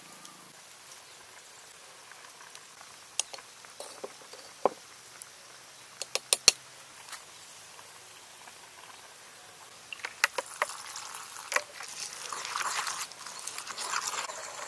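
A few scattered sharp clicks and knocks, then, from about ten seconds in, a stone pestle tapping and then grinding a wet chilli paste in a stone mortar, with a dense scraping sound.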